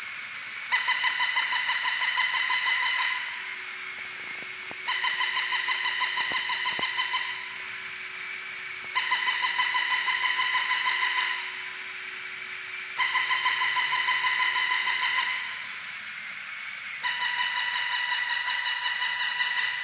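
Battery-powered walking toy puppy's sound chip playing a shrill, buzzy electronic call through its small speaker, five times in bursts of about two and a half seconds, roughly every four seconds. The toy's walking mechanism runs quietly between the calls.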